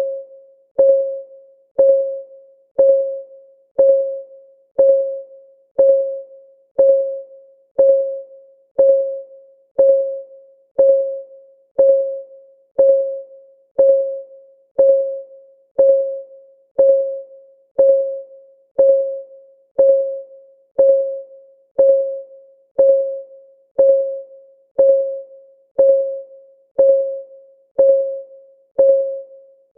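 Countdown timer's ticking sound: a short, pitched tick once a second, each with a sharp start and a quick ringing fade.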